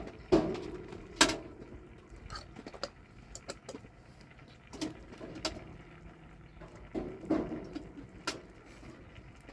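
Irregular knocks and clicks, a dozen or so, the two sharpest in the first second and a half.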